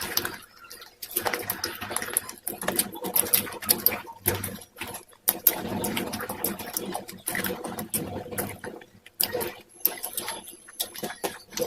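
Close-up crunching and chewing of pieces of white groove slate: dense, irregular crackling crunches with a few short pauses.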